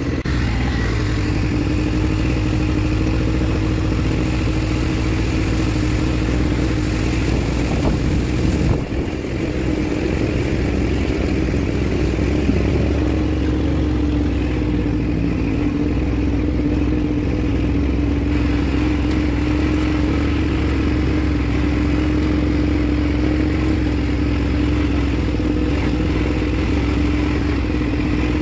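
Quad-bike ATV engine running at a steady speed, holding one even pitch. About nine seconds in, the sound briefly dips and shifts, then carries on steadily.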